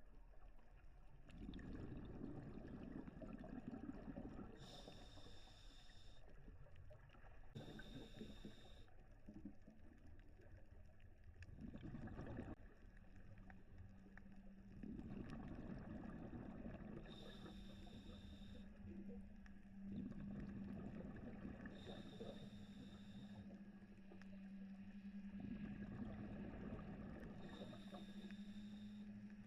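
Scuba diver breathing through a regulator underwater: a short hissing inhale and a low bubbling rumble on each exhale, repeating every four to five seconds. A steady low hum comes in about halfway through and carries on to the end.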